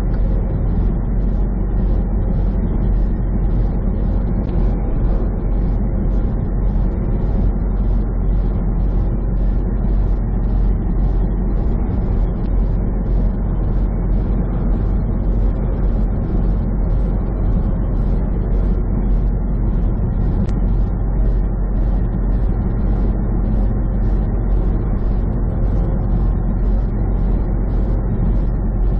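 Steady road and engine rumble of a vehicle driving at highway speed, heard from inside, with a faint regular ticking about one and a half times a second.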